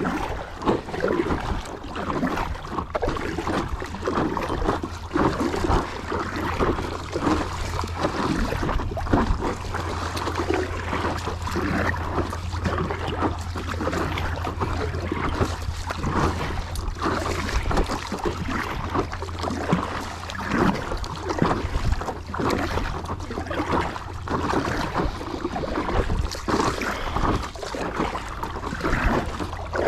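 Water splashing and lapping around a kayak being paddled, with wind rumbling steadily on the microphone.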